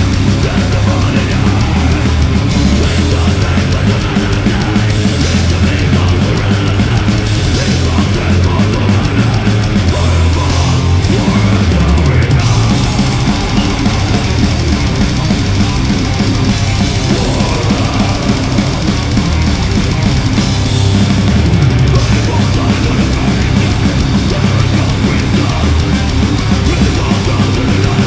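Loud heavy metal music with distorted guitars and drums, played continuously without a break.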